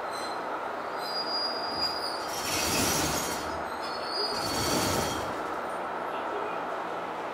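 Fukui Railway 200-series electric train heard from inside the car: steady running noise with two brief, louder high-pitched hissing surges about three and five seconds in.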